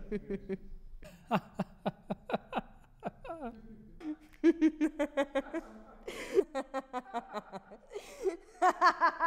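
A woman laughing in repeated short bursts, growing louder about halfway through.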